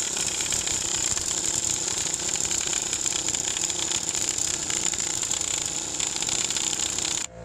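Impact wrench hammering steadily on a lug nut to pull a new wheel stud into the rear hub flange; it stops abruptly near the end.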